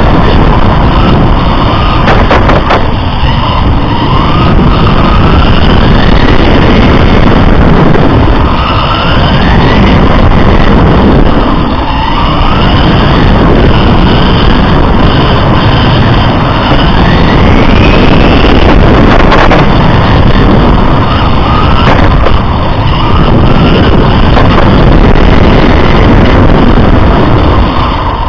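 A racing RC car's motor and drivetrain, heard from a camera on the car, whining upward in pitch again and again every few seconds as it accelerates out of corners, over loud wind and tyre rumble.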